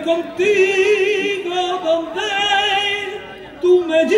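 A solo voice singing long held notes with a wide vibrato, sliding up into the first note. It breaks off briefly about three and a half seconds in, then comes back.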